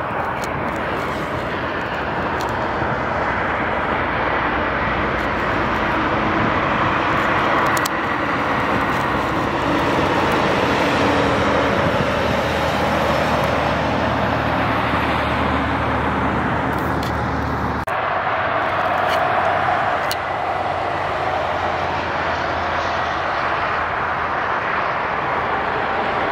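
Interstate traffic: tyre noise and diesel engines of passing tractor-trailers and cars. A truck's low engine drone strengthens through the middle and breaks off suddenly about two-thirds of the way through.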